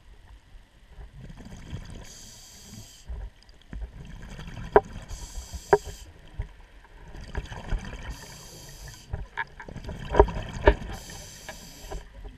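Scuba diver breathing underwater through a regulator: a hiss about every three seconds as air is drawn in, with bubbling and sharp clicks between the breaths.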